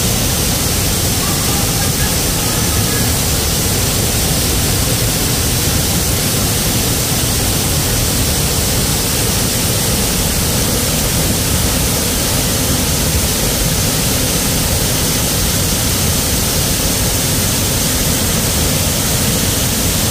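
Jacko Falls waterfall pouring, a loud steady rush of falling water with no let-up.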